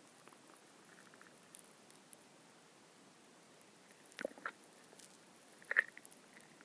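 Human stomach gurgling: a few short squeaky gurgles, two close together a little past four seconds in and a louder one near the end.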